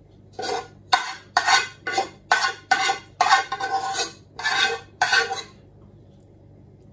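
Metal spoon scraping and knocking against a non-stick cooking pot about a dozen times in quick succession, each stroke with a short metallic ring, as sauce is scraped out of the pot.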